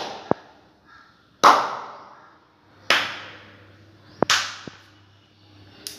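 Three sharp hand claps about a second and a half apart, each with a short echo, clapped to trigger a sound-activated LED light switch. Fainter sharp clicks fall between them.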